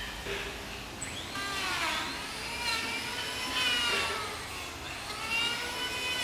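Electric power tool whining at high speed, its pitch sagging as it bites into the wood and climbing back, twice.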